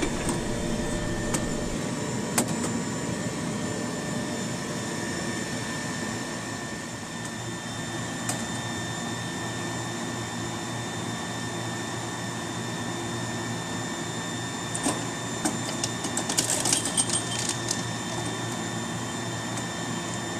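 Babyplast micro-injection molding machine running with its sprue separator's ridged spindle turning: a steady mechanical hum with a few fixed tones. A few sharp clicks come through it, with a short run of clicks and rattles about three-quarters of the way through.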